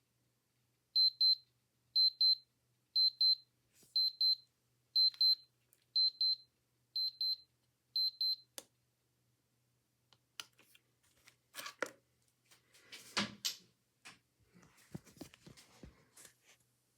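Digital watch alarm beeping at a high pitch in short double beeps, about one pair a second, eight times. It is cut off by a sharp click, and a few seconds later comes handling noise: clicks, knocks and rustling.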